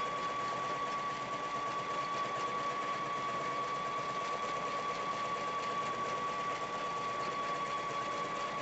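Brother BB370 sewing machine running steadily at a constant speed while free-motion quilting, its motor giving an even whine that holds the same pitch throughout.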